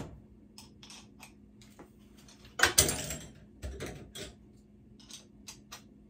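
Small metal clicks and clinks of a tap handle and hand tools being handled on a stainless steel sink as the faucet is put back together. The louder clatter comes about three seconds in, and a few lighter ticks follow.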